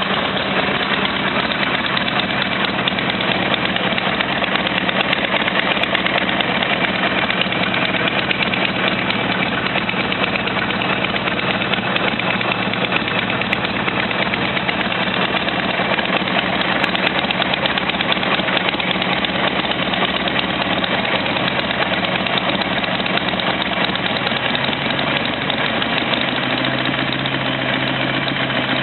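Buell XB12Ss motorcycle's air-cooled V-twin engine running steadily at idle.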